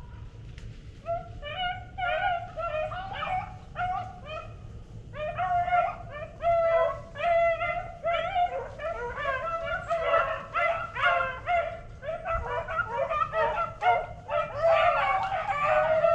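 A pack of beagles baying as they run a rabbit, the hounds in full cry on its scent. Many voices overlap, starting about a second in and growing thicker near the end.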